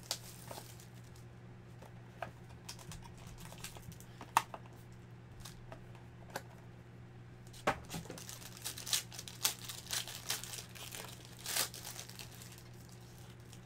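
A plastic trading-card wrapper is crinkled and torn open by hand as a card box is opened. Scattered crackles and rustles grow thickest a few seconds before the end, over a steady low hum.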